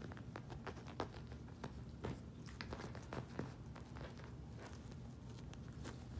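Miniature poodle puppies scampering and playing on carpet: scattered light taps and scuffs of small paws, a few sharper clicks among them, over a low steady hum.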